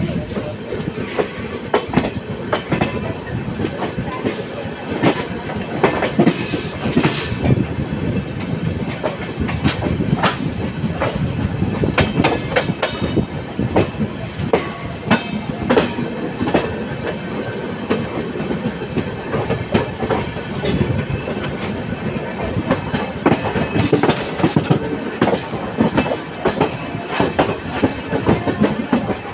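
Passenger train wheels rolling on the track, heard from an open coach doorway: a steady rumble with irregular clicks and clacks as the wheels run over rail joints and points.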